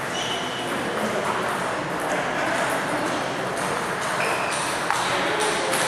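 Table tennis balls clicking off tables and bats at scattered, irregular moments, over a steady background noise of a busy playing hall.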